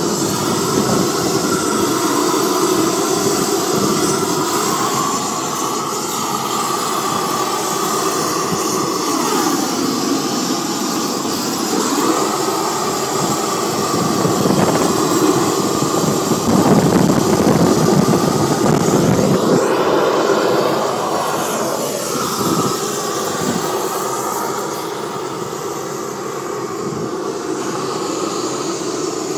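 Steady, loud running of a gas-fired hot-melt kettle melting Permatech waterproofing, its pitch wavering slowly.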